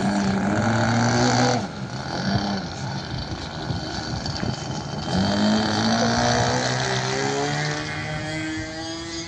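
A small engine buzzing, its pitch gliding. The note drops away about a second and a half in, then comes back about five seconds in and climbs slowly.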